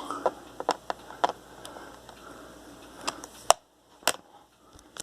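Handling noises from a laptop being moved about: a string of sharp plastic clicks and taps, the loudest about three and a half seconds in, with faint rustling between them.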